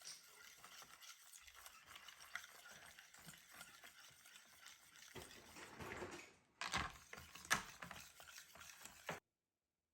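Near silence: faint room tone with a few soft clicks and brief rustles, then dead silence near the end.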